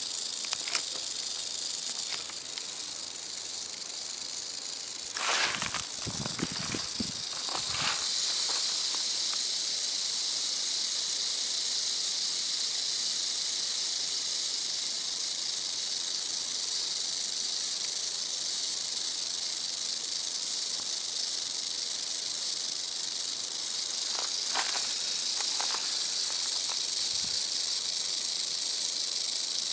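Rattlesnake rattling: a continuous high buzz that grows louder about eight seconds in and then holds steady. A few brief knocks sound over it between about five and eight seconds and again near twenty-five seconds.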